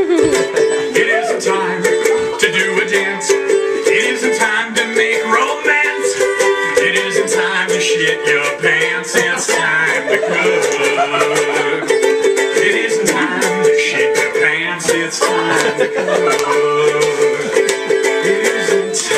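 Ukulele strummed quickly and steadily, an instrumental break between sung verses.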